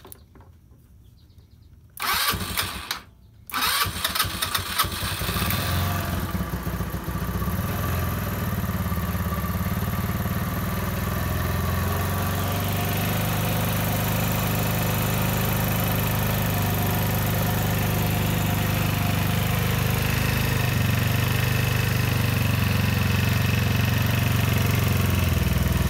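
GY6 150cc long-case single-cylinder four-stroke scooter engine being started: a first attempt about two seconds in that stops after about a second, then a second attempt that catches. It runs unevenly for a couple of seconds, then settles into a steady idle.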